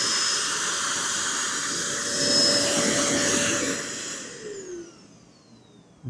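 Gpower drum vacuum cleaner running with a steady whine over the rush of air. About three and a half seconds in it is switched off, and the whine falls away as the motor spins down.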